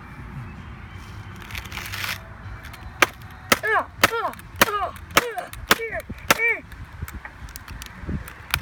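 A run of about seven sharp blows, roughly half a second apart, each followed by a brief pitched ring, as a MacBook is struck to break it apart.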